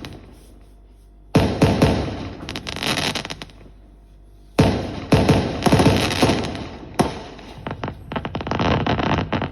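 Fireworks exploding: a sudden loud bang about a second in with crackling after it, a lull, then another heavy burst near the middle followed by a rapid run of sharp cracks and bangs.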